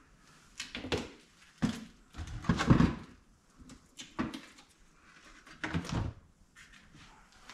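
Plastic buckets, lids and containers being handled and set down: a string of separate knocks and clatters, the loudest cluster about two and a half seconds in.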